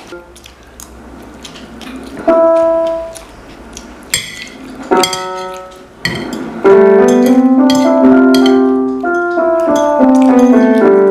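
Instrumental music: a few separate notes at first, then a fuller, continuous run of notes and chords from about two-thirds of the way in.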